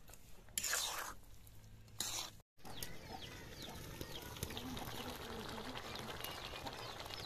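A long metal spatula scraping twice through fish curry in a large iron wok, then the curry simmering in the steaming wok over a wood fire: a steady crackly hiss with many tiny pops.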